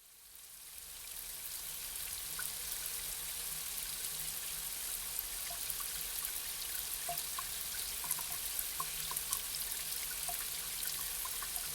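Steady rain hiss with scattered separate drops pattering, fading in over the first two seconds.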